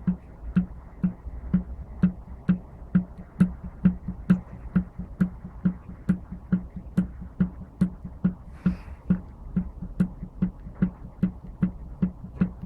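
Yamaha TT-R125's single-cylinder four-stroke engine giving a regular knock about twice a second, each a dull thump with a sharp click, over a low steady rumble. The owner takes it for a crankshaft knock and is unsure whether it is normal.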